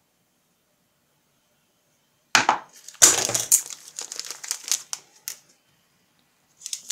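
Kitchen handling noises: silent at first, then a sudden clatter about two seconds in as a knife is dropped into a stainless steel sink. A couple of seconds of crinkling and light clicking follow as a paper sachet of vanillin is handled.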